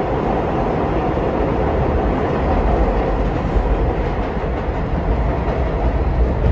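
Subway train running on the rails: a steady rumble of wheels and traction motors.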